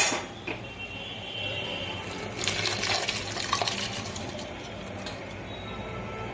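Soaked rice and toor dal tipped into boiling salted water in a pressure cooker: a wet pouring and splashing, busiest a couple of seconds in, with a few knocks of the bowl or spoon against the pot.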